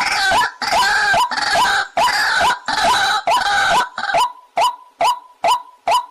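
White-breasted waterhen calling: a fast run of repeated notes, harsh and crowded for the first four seconds, then settling into clean single notes about twice a second.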